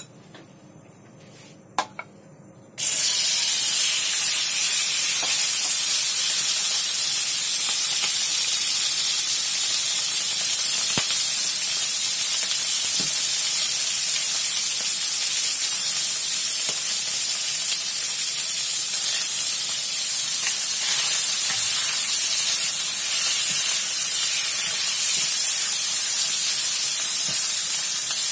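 Marinated chicken strips hit hot oil in a wok and start sizzling about three seconds in, after two light clinks, then fry with a loud, steady hiss.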